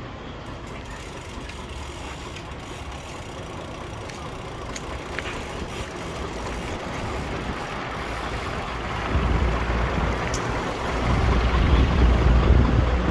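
A motor vehicle's engine running, growing louder over the last few seconds.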